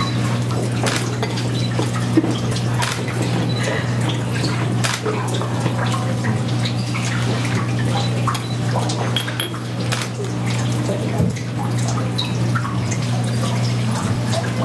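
Water trickling and splashing with many small drips, over a steady low hum.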